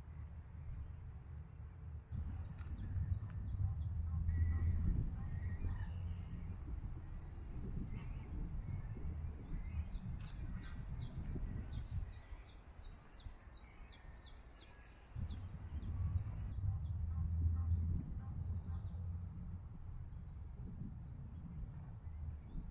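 Songbirds singing outdoors: quick repeated high chirps and fast trills, over a low uneven rumble that swells twice.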